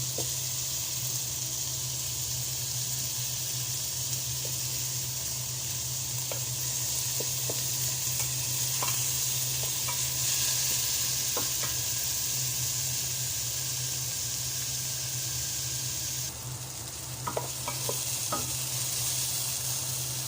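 Onion, garlic, ginger and tomato sautéing in hot oil in a pan, sizzling steadily, with scattered clicks and scrapes of a spatula stirring against the pan. A steady low hum runs underneath.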